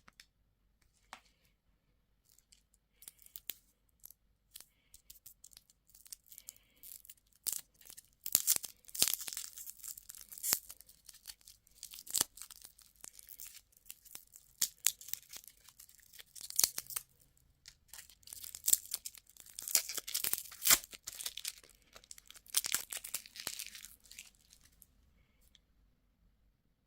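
A candy wrapper being torn open and crinkled: a dense run of small crackles and clicks that swells into two louder stretches, about a third of the way in and again past two-thirds, then dies away near the end.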